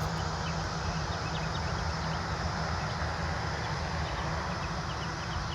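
Steady outdoor background noise: a low rumble with faint, scattered high chirps.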